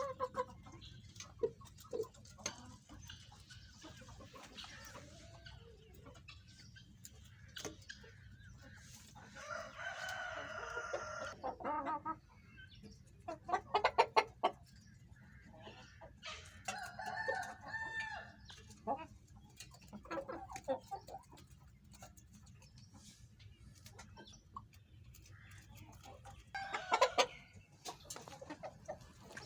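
Aseel roosters crowing twice, each crow about two seconds long, one about ten seconds in and another about seventeen seconds in, with chickens clucking and scattered short knocks between.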